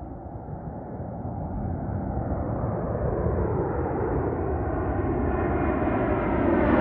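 Airbus A220-300 jet airliner with Pratt & Whitney geared turbofan engines, heard on its arrival. The engine noise grows steadily louder and brighter as the aircraft comes nearer.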